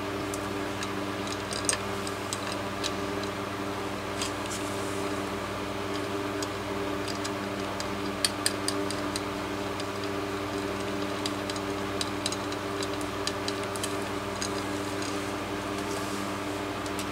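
Scattered light metallic clicks of bolts and tools being handled while a fan motor's housing is bolted back together, irregularly spaced. A steady hum runs underneath.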